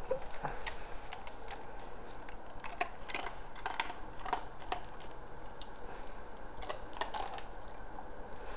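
Basset hound puppy crunching a hard treat: a string of quick, irregular crunches and clicks, busiest in the middle of the stretch.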